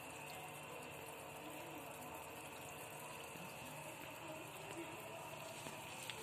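Faint, steady running water in a catfish tank.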